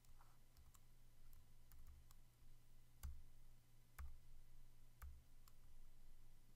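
Faint clicks of a computer keyboard and mouse. There is a scatter of light clicks, then three louder ones about a second apart in the middle, over a steady low hum.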